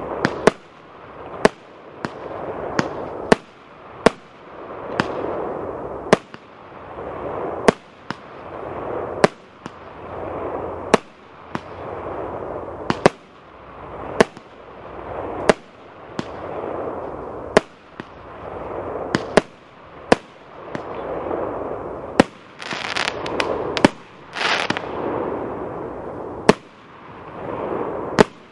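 A multi-shot firework cake (a 50-shot battery of mixed-calibre tubes) firing in a steady sequence: a sharp launch report roughly once a second, each followed by the hiss and burst of its effect fading away. About three-quarters of the way through, the bursts turn to bright crackling.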